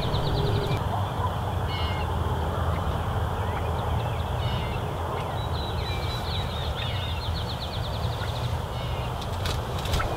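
Wild birds calling in the open: quick high trills, one early and a longer one around the middle, plus scattered short chirps, over a steady low rumble.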